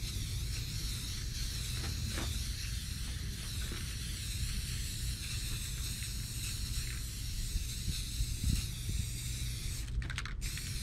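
Aerosol spray-paint can hissing steadily as paint is sprayed in sweeping passes, with a brief break in the spray about ten seconds in. A steady low rumble runs underneath.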